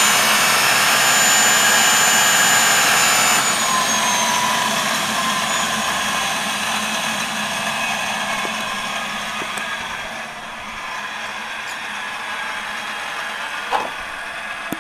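Williams WR27-1 gas turbine auxiliary power unit spun by its electric starter motor on 24 volts: a steady high whine over a rush of air. About three and a half seconds in the whine drops in pitch and the sound fades slowly as the rotor coasts down, with a small knock near the end.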